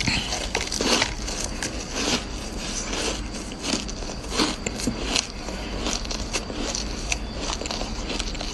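Purple-flavoured frozen shaved ice bitten and chewed close to the microphone: a dense, irregular run of crisp crunches and crackles.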